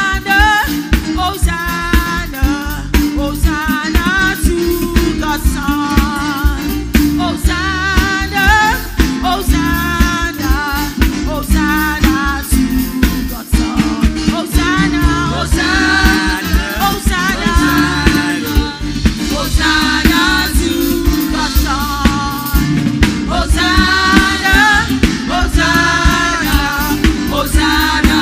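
Live gospel praise music: singing voices over a band with a drum kit keeping a steady, upbeat rhythm.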